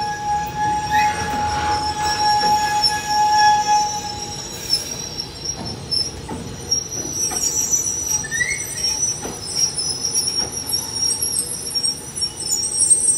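Loaded HOA stone hopper wagons rolling past, their wheels squealing in thin, steady high tones, with scattered clanks and knocks from the running gear over a low rumble. A lower squeal fades out about four seconds in, and a short rising squeal comes near the middle.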